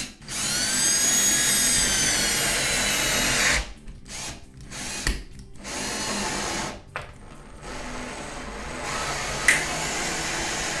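Cordless drill/driver spinning up with a whine as it drives a self-drilling drywall anchor into the wall, then a few short bursts and a longer steady run as it drives screws through a metal Z clip.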